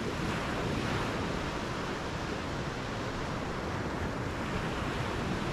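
Heavy surf breaking and washing up a sandy beach: a steady rush of waves.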